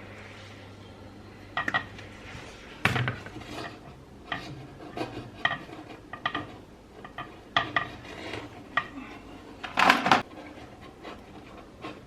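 Small metal parts clinking and knocking, a dozen or so irregular clinks with a short ring, loudest about ten seconds in. A low hum stops about two and a half seconds in.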